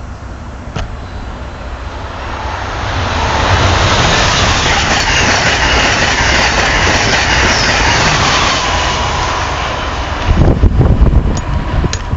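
Passenger train passing at speed. A loud rush of wheels and air builds over a couple of seconds and holds for several seconds, then turns into a heavier low rumble with clattering clicks from the wheels near the end.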